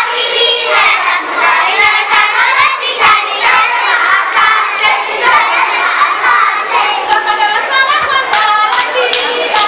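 A crowd of young children singing and shouting together while clapping their hands; the claps come thicker and sharper near the end.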